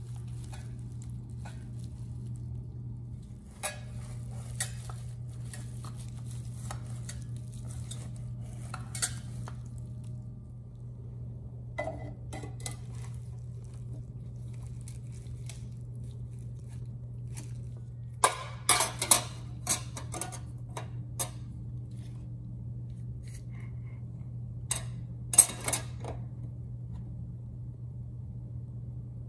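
Stainless steel table parts (tube legs, caster wheels, bolts and frame) knocking and clinking as they are handled and fitted together, in scattered sharp clinks with two denser clusters past the middle and near the end. A steady low hum runs underneath.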